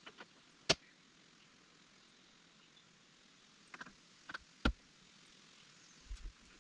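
Scattered sharp clicks and knocks from hands and tools working at a tractor cab's glass door, in small groups, the loudest under a second in.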